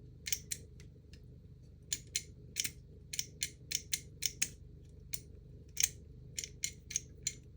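A magnetic lock being worked with a 3D-printed decoded key: about twenty sharp, irregular small clicks as the key is fitted and jiggled and the lock's latch works until it opens.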